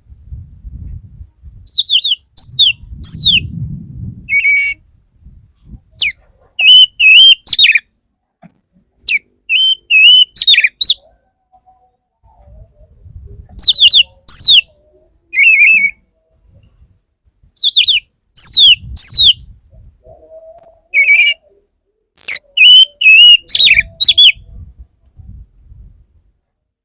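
Male oriental magpie-robin (kacer) singing its courting song: loud, clear whistled phrases of sharp downward-sweeping notes, given in bursts every few seconds with short pauses between. A faint low rumble sits under some of the phrases.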